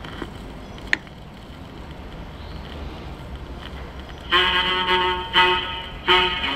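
A record playing on an Emerson Swing Mate portable mono record player: low steady noise with a single click about a second in, then music with held, sustained notes starts about four seconds in.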